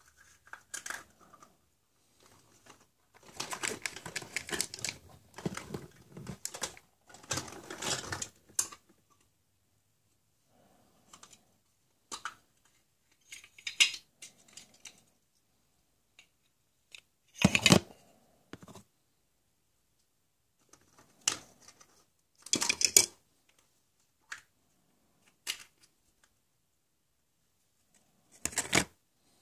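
Plastic surprise-egg capsules and small plastic toy cases being pulled apart and handled: irregular runs of clicking and rattling plastic, with a few louder clacks, the loudest a little past the middle.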